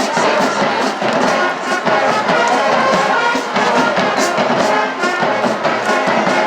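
A brass band with trombones and trumpets playing loudly over a steady drum beat.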